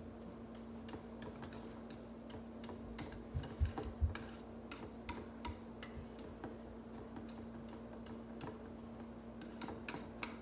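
A utensil stirring chocolate ganache in a stainless steel bowl, ticking irregularly against the metal sides as the liqueur is mixed in. A few dull knocks come about three and a half to four seconds in.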